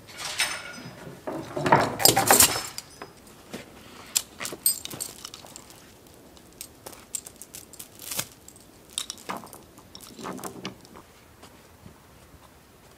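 Irregular metallic clinks, knocks and rattles of tools and hardware being handled on a building site, loudest in a dense cluster about two seconds in, then sparser ticks and knocks.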